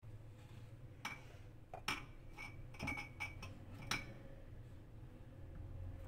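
Spatula scraping whipped cream from a stainless steel bowl and tapping against the rim, a quick run of about eight ringing clinks between about one and four seconds in.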